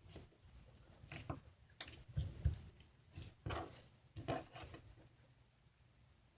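Hands squeezing and pulling sticky homemade slime with sponge mixed in, making irregular soft squishes and small clicks. The sounds thin out near the end.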